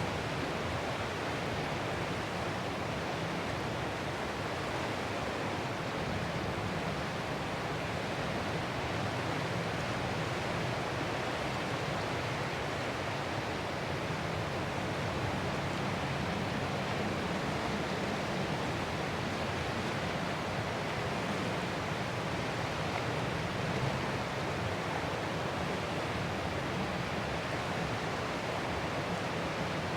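Ocean surf: a steady, even wash of waves with no single crash standing out from the rest.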